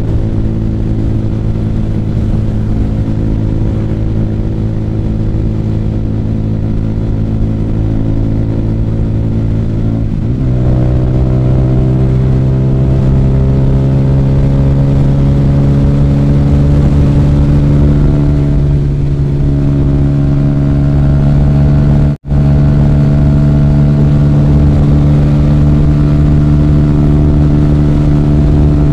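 Sport motorcycle engine running at a steady cruise, with wind buffeting the on-board microphone. About a third of the way in the engine note dips briefly, then climbs and runs a little higher and louder as the throttle is opened. The sound cuts out for an instant about two-thirds through.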